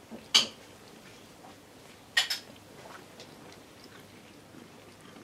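A cat grooming itself, licking its fur close up: a short sharp rasp about a third of a second in, a quick double one about two seconds later, and faint soft licking ticks in between.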